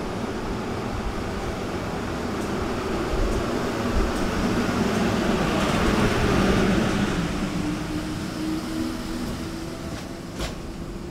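Renfe Class 448 electric multiple unit running past along the platform. Its steady rumble of wheels on rail swells about halfway, then fades as the last car goes by, with a steady low tone in the later part and one sharp click near the end.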